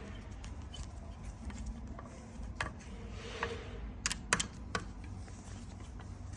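A few scattered sharp clicks and light taps, the loudest a quick pair about four seconds in: small metal parts of a disc brake caliper and its mounting bolts being handled and tightened.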